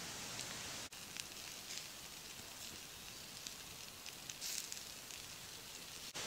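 Faint crackling and sizzling from chicken, pepper and mushroom skewers grilling over oak coals: a few small pops and crackles over a steady hiss.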